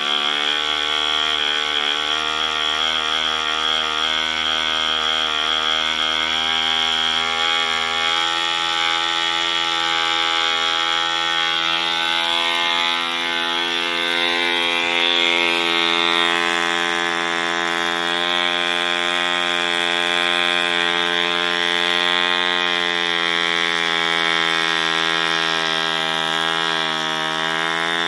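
Mills 1.3 cc model diesel (compression-ignition two-stroke) engine running steadily with its propeller spinning. Its pitch wavers up and down a few times as the compression screw and needle valve are adjusted to tune its running speed.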